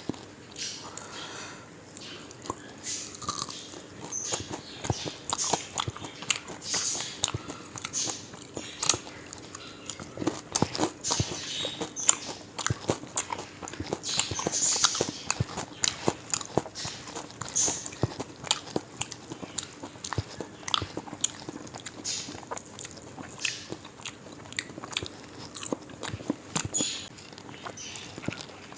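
A person biting and chewing deep-fried parrotfish, with a busy run of mouth smacks, small crunches and clicks.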